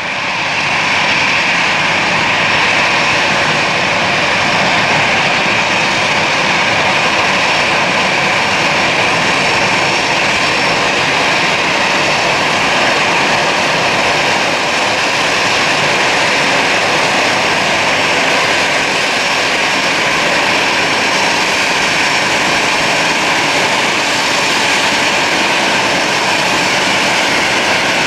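GE90 turbofan engines of a Boeing 777-300ER on final approach through touchdown: steady jet noise with a high whine.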